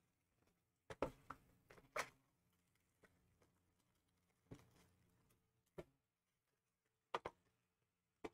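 Quiet handling of card-box packaging: a handful of short knocks and rustles of cardboard and plastic, the loudest about one and two seconds in, with near silence between.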